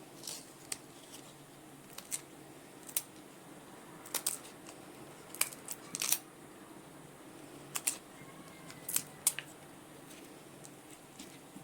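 Fresh guava leaves being torn in half by hand: short, crisp rips and snaps at irregular intervals, some coming in quick pairs.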